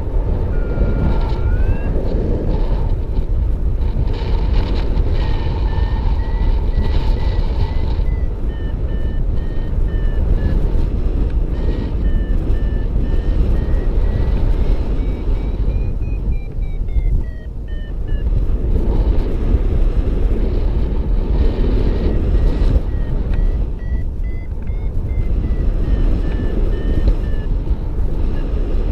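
Paragliding variometer beeping in quick pulses, its pitch rising and falling with the climb rate; the beeps signal the glider is climbing in rising air. They stop briefly about two thirds of the way in, then resume. Heavy wind rumble on the microphone underneath.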